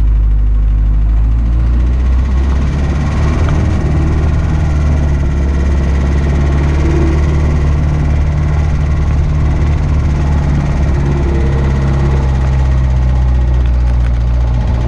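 1950 Land Rover Series 1's four-cylinder petrol engine running steadily as the vehicle drives slowly over rough grassy ground, heard close up from the bonnet.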